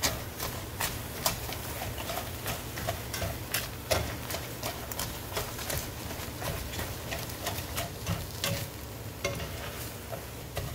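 A spatula stirring and scraping egg, tortilla chips and cheese around a nonstick frying pan, with irregular clicks and scrapes against the pan over a soft sizzle of the egg still cooking.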